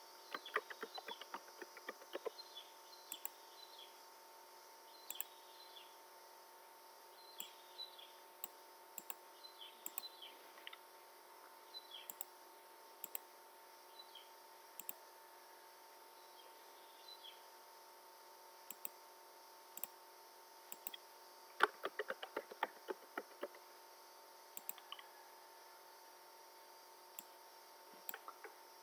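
Computer mouse clicks scattered throughout, with two short runs of rapid keyboard typing, one at the start and one about two-thirds of the way through, over a faint steady hum.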